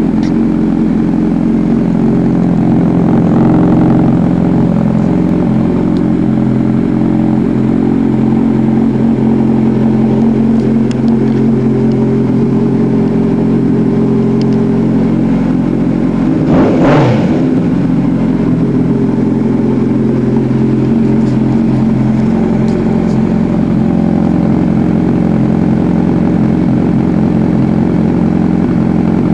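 2006 Honda CBR1000RR's inline-four engine idling steadily as it warms up, heard close to its aftermarket slip-on muffler. About two-thirds of the way through, one quick blip of the throttle makes the pitch rise and fall back to idle.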